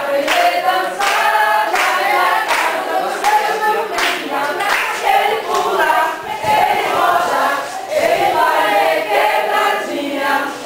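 A group of people singing together in unison, with hand claps keeping a steady beat.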